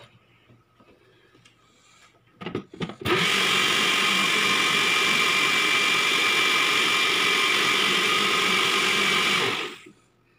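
Personal bullet-style blender running steadily, pressed down on its motor base as it purées pesto, with a high steady whine over the whir. A few knocks come just before the motor starts, and it cuts off near the end.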